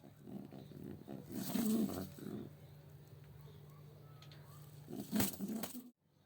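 Domestic pigeons cooing, a low pulsing murmur, with two louder noisy bursts, one about a second and a half in and one near the end.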